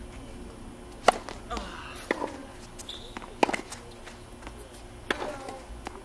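Tennis rally on a hard court: a tennis ball struck by rackets and bouncing on the court, giving sharp pops every second or so. The loudest come about a second in and about three and a half seconds in.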